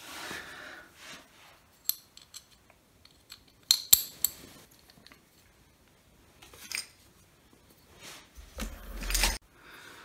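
Scattered light metallic clicks and clinks from handling a tumble dryer's idler pulley on its metal bracket, the loudest cluster about four seconds in. Near the end comes a short rustling scrape with a low rumble.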